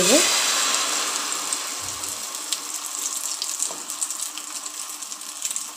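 Beaten egg omelette mixture poured into hot oil on a flat tawa, sizzling loudly as it hits the oil and settling to a softer frying hiss with scattered small pops.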